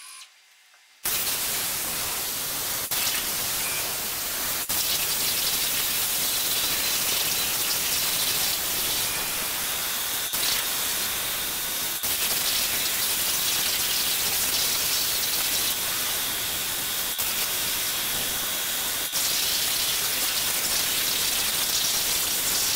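CNC plasma cutting torch cutting 16-gauge steel plate: a loud, steady hiss with a thin high whistle through much of it, starting about a second in after a brief quiet.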